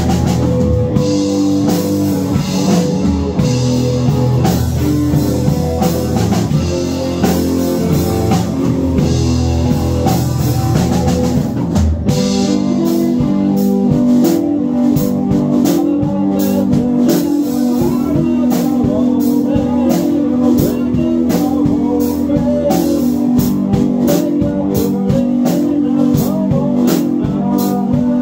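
Live rock band playing: electric guitars over a drum kit. About twelve seconds in the music shifts into a new section with steadier held low notes under the drums.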